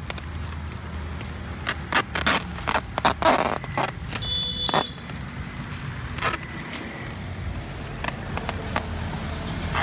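Clear packing tape being pulled off its roll in short rips, with plastic snack bags crinkling, most busily between about two and five seconds in, and a brief high squeal a little after four seconds. A steady low rumble of road traffic runs underneath.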